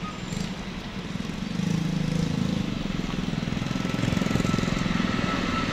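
Small motorcycle engine idling close by, a rapid low chugging. A deeper rumble swells from about a second and a half in as a diesel train nears the crossing.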